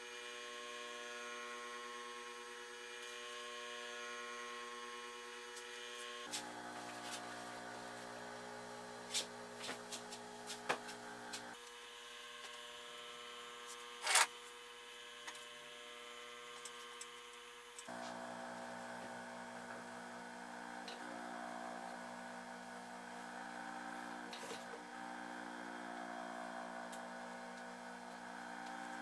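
Faint steady hum of a workshop, made of several held tones that change abruptly in character three times, with scattered light clicks and handling noises from working fabric and pins; one sharper click about fourteen seconds in.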